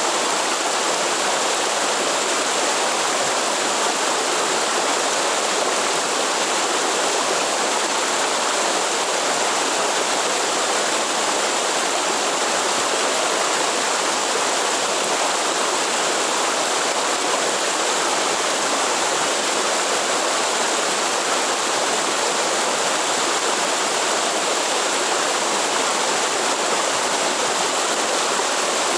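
Waterfall, falling water rushing steadily.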